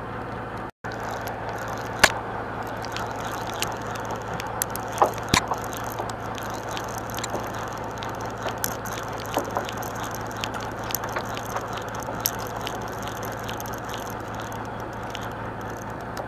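Steady low hum of a boat's engine with water washing, under scattered clicks and knocks from hands working a conventional fishing reel; a sharp knock about two seconds in is the loudest.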